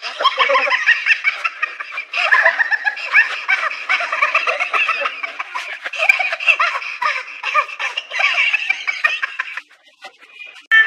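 Long bouts of high-pitched laughter, breaking off briefly about two seconds in and stopping shortly before the end.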